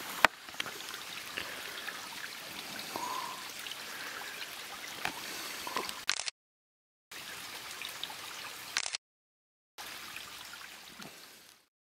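Steady trickle of water over rocks, with scattered small clicks, cut off dead twice and then fading out near the end.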